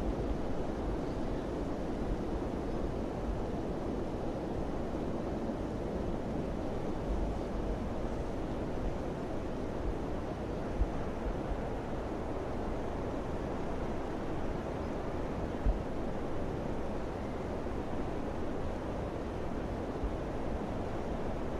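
Steady wind blowing, a dense rushing noise with low rumbling gusts buffeting the microphone. There are two brief low thumps, about halfway through and about three-quarters through.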